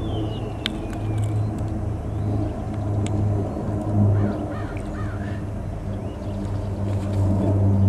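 Steady low rumble with a constant engine-like hum, and a few faint high chirps over it.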